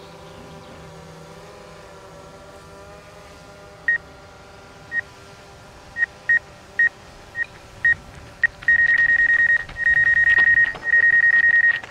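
DJI Mavic 2 Pro obstacle-sensing warning beeping from the remote controller: single high beeps a second or so apart, coming faster and faster until they run together into rapid beeping from about nine seconds in, the sign that the drone is closing on the tree. Beneath it, the steady hum of the drone's propellers.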